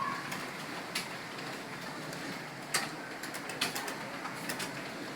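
Computer keyboard keys being struck one at a time in slow, uneven typing, with irregular gaps between the clicks.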